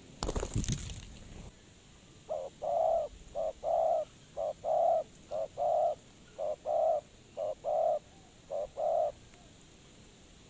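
A brief loud burst of noise at the start, then a spotted dove cooing about seven times in a steady run, each phrase a short note followed by a longer one.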